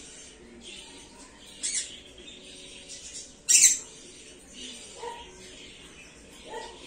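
Pineapple green-cheeked conure giving two short, harsh squawks, about one and a half and three and a half seconds in, the second louder.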